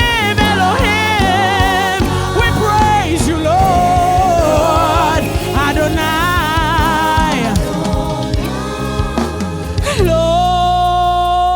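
Gospel worship music: a lead voice sings a melody with vibrato over sustained low accompaniment. About ten seconds in it settles into a long held note.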